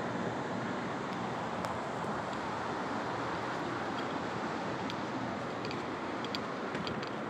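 Steady, even background noise with no speech, with a few faint light ticks in the second half.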